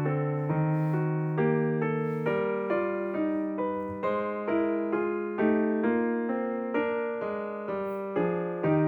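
Background piano music: a slow melody of single struck notes over held bass notes, about two notes a second.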